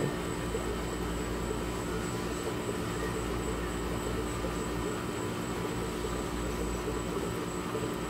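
A steady mechanical hum with a hiss over it.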